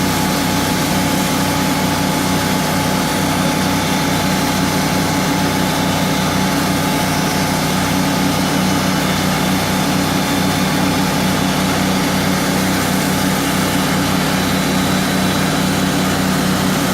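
Portable sawmill's engine running steadily at an even pitch.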